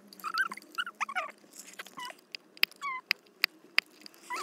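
Pestle crushing tablets in a small plastic mortar: a run of sharp taps mixed with short squeaks of the pestle grinding against the plastic.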